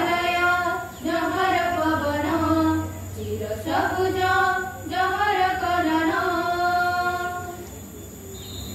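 Schoolgirls singing a song in Odia into microphones, in long held phrases, falling quiet briefly about a second before the end.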